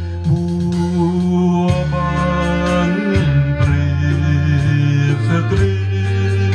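Alto saxophone played live over a karaoke backing track, carrying the melody above a steady, heavy bass line.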